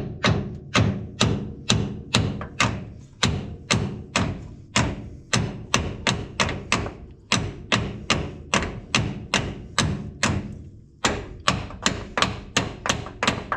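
A hammer striking metal over and over, about two or three blows a second. There is a brief pause about ten and a half seconds in, and then quicker blows resume.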